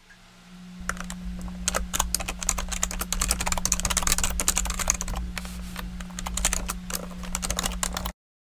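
Rapid typing on a computer keyboard: a dense, irregular run of key clicks over a steady low hum, cutting off abruptly near the end.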